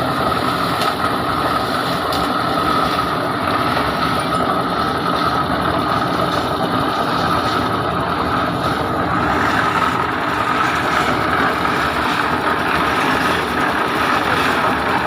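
A large engine running steadily at a constant speed, with a steady high whine on top. The sound does not change.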